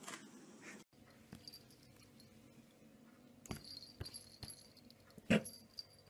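Two cats play-fighting: scattered light clicks and scuffles, a brief high jingling around the middle, and one short, loud animal sound about five seconds in.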